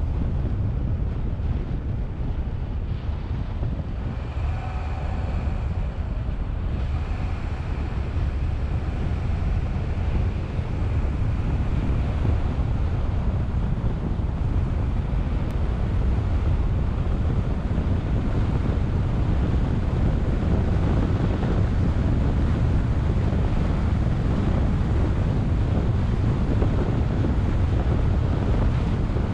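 Wind buffeting the microphone over the steady rumble of a car driving along a road. The noise grows a little louder partway through.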